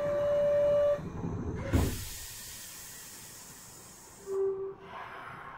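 Kyoto Municipal Subway 20 series train's door buzzer sounds a steady tone that stops about a second in, the doors shut with a thump, and a burst of compressed-air hiss follows for a couple of seconds as the doors close and the train gets ready to leave. A short low beep sounds near the end.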